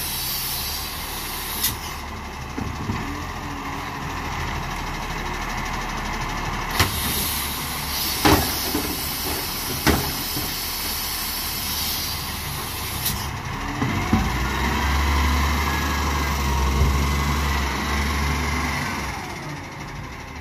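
Side-loading recycling truck working its hydraulic arm lifter, with a hiss and several clanks as the wheelie bin is emptied and set back down. About two-thirds of the way through, the truck's diesel engine revs up as it pulls away.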